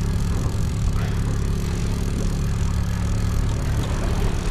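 Boat motor running steadily, a low even hum, with a hiss of wind and water over it.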